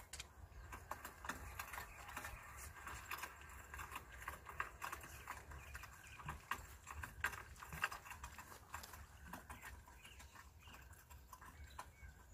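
Irregular light clicks and taps from fishing rods and tackle being handled, over a steady low rumble.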